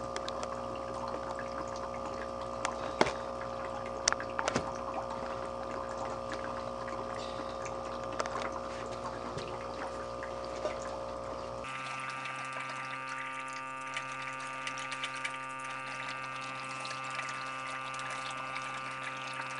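Aquarium air pump humming steadily while its air bubbles through a glass of bleach solution holding brine shrimp cysts, with scattered sharp ticks. About twelve seconds in the sound changes abruptly: the low hum drops away and the tones sit higher.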